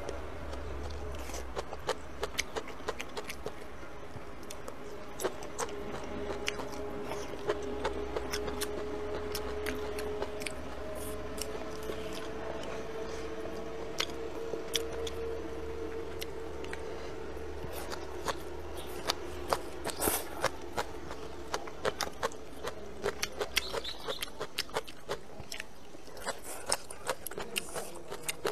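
Close-miked eating: a person chewing and biting food, with many short clicks of chopsticks against the plate. A faint steady hum runs underneath for a stretch in the middle.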